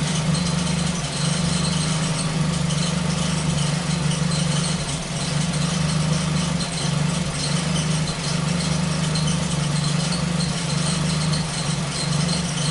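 Ford Focus engine idling steadily, with a misfire that still shows up now and then, though far less often than before the repair.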